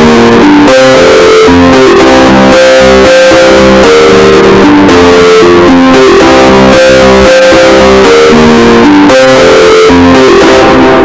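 An iPhone alarm tone: a repeating plucked, guitar-like melody, boosted so loud that it distorts and stays at full loudness throughout.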